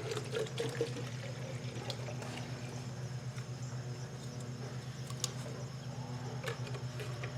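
Water running and pouring as a chicken waterer is filled, with small clicks and knocks, over a steady low hum.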